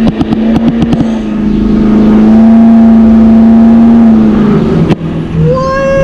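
2004 Chevy Silverado 3500's 6.6 L LLY Duramax V8 turbo-diesel pulling under acceleration, heard loud from inside the cab: a steady drone that holds for a few seconds, then a rising whine near the end.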